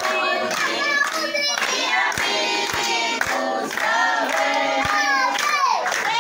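A group of people, children among them, singing a birthday song together.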